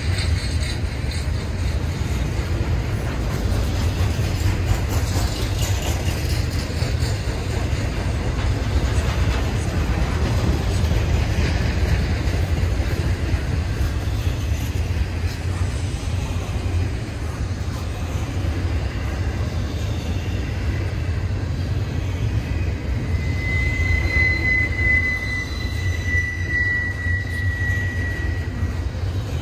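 Double-stack intermodal freight train rolling past, a steady rumble of wheels on rail. A thin, high, steady squeal sounds for about five seconds near the end.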